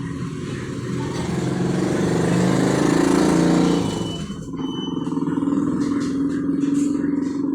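A motor vehicle's engine running, growing louder to a peak about three seconds in and then easing off.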